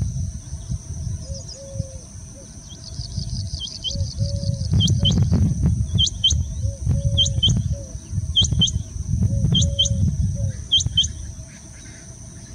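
Male rain quail giving its mating call: a sharp double note, repeated about every second and a quarter, seven times.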